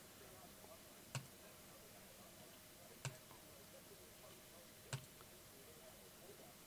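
Computer mouse button clicked three times, about two seconds apart: single sharp clicks over faint background hiss.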